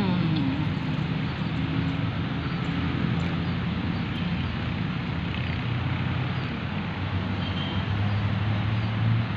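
Steady road traffic noise with the low hum of passing vehicle engines, one engine hum growing stronger in the last few seconds.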